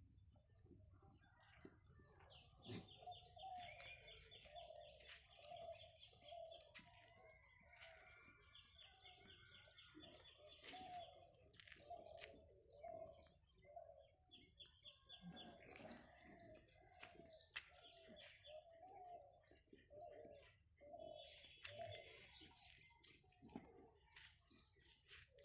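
Faint bird calls: a run of low cooing notes, about one and a half a second, under bursts of high chirping trills.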